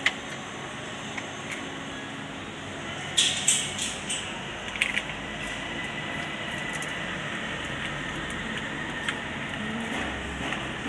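Hands handling a tractor's wiring harness and connectors: a few sharp clicks and rattles, with a cluster of them about three to five seconds in, over a steady workshop background hum with a faint high whine.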